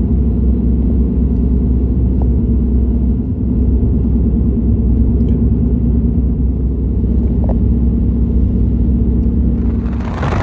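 Steady low rumble of a car driving, heard from inside the cabin: engine and tyre road noise with a constant hum.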